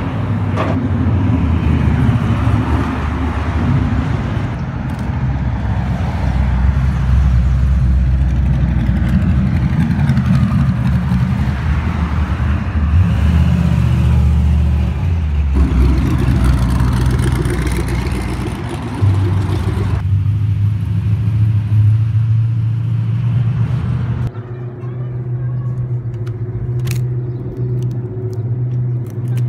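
Loud, deep engine rumble of drag cars driving past one after another, with revving. The sound changes abruptly several times, and a steadier engine hum runs through the last few seconds.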